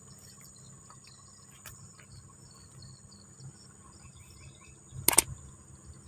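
Steady high-pitched chirring of insects, crickets by the sound of it, with a brief sharp noise about five seconds in.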